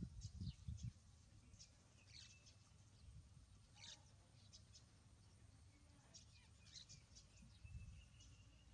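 Faint high animal chirps and short squeaks, with scattered small clicks throughout and a few low thumps in the first second.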